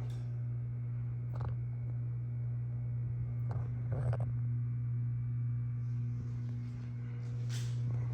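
Harbor Breeze Springfield II ceiling fan's motor running with a steady low electrical hum, with a few faint ticks.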